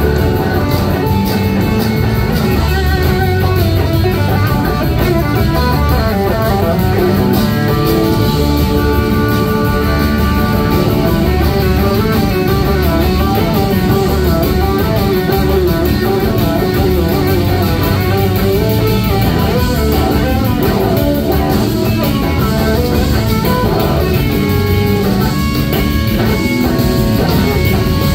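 A live rock band playing loudly: a semi-hollow-body electric guitar plays a wavering, bending lead line over a full drum kit and bass.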